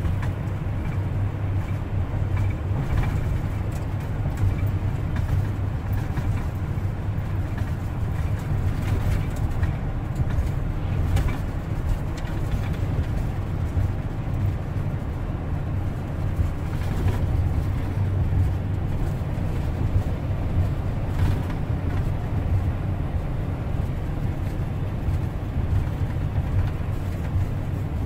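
Car cabin road noise while driving: a steady low rumble of the engine and tyres on the road, heard from inside the car.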